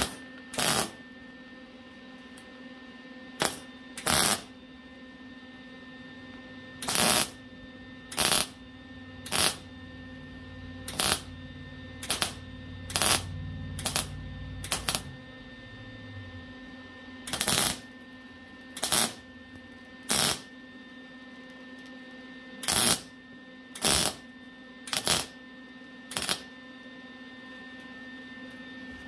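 Welder laying a series of tack welds on the truck's sheet metal: about eighteen short bursts, each under a second, in uneven clusters with pauses between as the tacks are spread around to keep the heat down. A steady low hum runs underneath.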